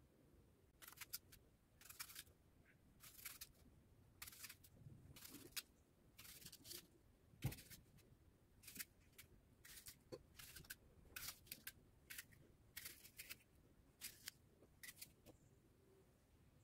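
Faint, crisp cuts of a small knife slicing pieces off a raw apple: a string of short crunchy strokes, roughly one a second, with one soft knock about halfway through.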